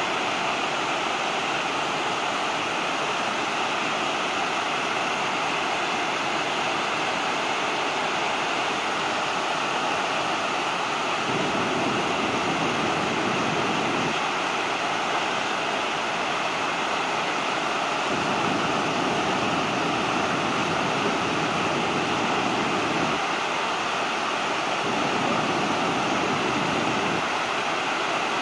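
River water pouring over a broad, low weir: a steady, loud rush. A deeper low rumble swells in and drops away several times.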